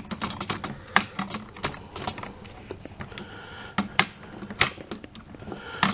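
Plastic parts of the DX Kojishi Voyager transforming toy being handled and snapped into place: a run of irregular clicks and clacks.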